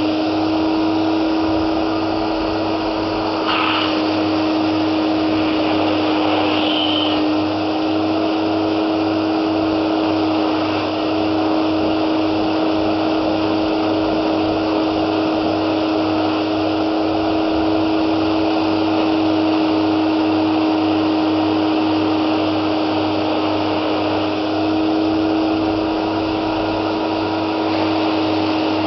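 Hoover Aquamaster S4396 wet-and-dry carpet washer's 1050 W motor running steadily: an even rush of suction with a constant whine.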